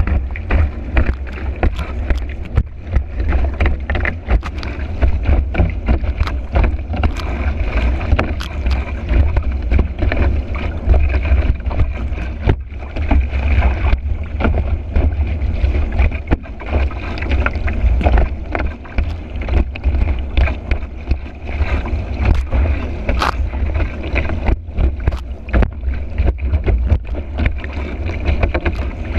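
Kiteboard planing fast over choppy water: steady rushing and splashing of water under the board, with frequent sharp slaps as it hits the chop. Heavy wind rumble on the board-mounted microphone underlies it all.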